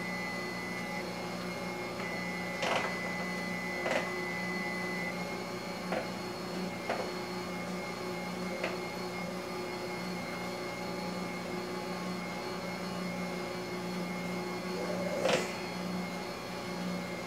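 Utensil clinking and knocking against a stainless steel saucepan about six times at irregular intervals while cream is worked into mashed potatoes, the loudest knock near the end. Under it runs a steady appliance hum, with a thin high tone for the first few seconds.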